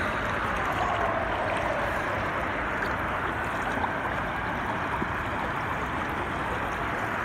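Shallow stream water rushing steadily over and around stones. A few faint falling tones sound over it near the start.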